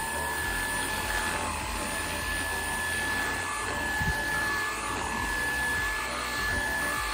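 Cordless stick vacuum cleaner running steadily, its motor giving a high, steady whine over a rushing of air.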